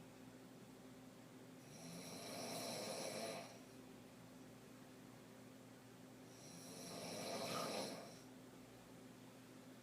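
A sleeping woman snoring: two long snores about five seconds apart, each swelling and then dropping away.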